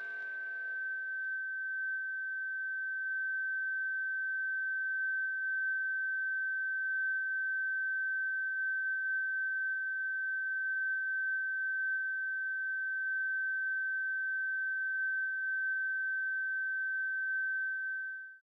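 A single steady high-pitched electronic tone, held unbroken without any change in pitch, then cut off abruptly at the end; a music cue dies away under it in the first second.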